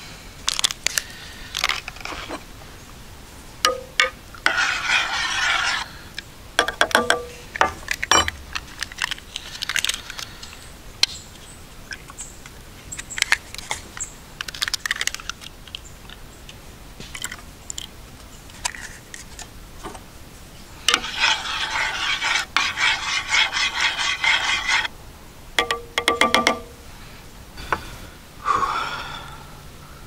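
Intermittent rustling and scraping with scattered sharp clicks and knocks, typical of camping gear being handled. A longer stretch of rustling comes about two-thirds of the way through.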